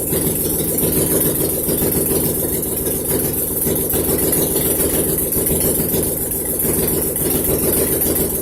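Car engine idling loud and steady with its exhaust headers removed, so it runs open straight from the exhaust ports with a rapid, even pulsing.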